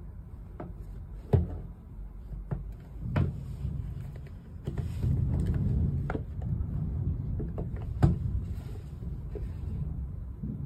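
A cardboard smartphone box being handled and turned over on a wooden table: a few sharp knocks, the loudest about a second in and again about eight seconds in, with rubbing of fingers on the cardboard between, over a steady low hum.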